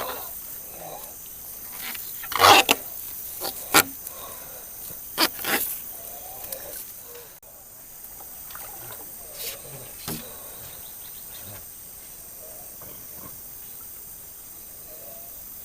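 Irregular sharp knocks and chops, about six in all within the first ten seconds, the loudest about two and a half seconds in, over a steady high drone of forest insects.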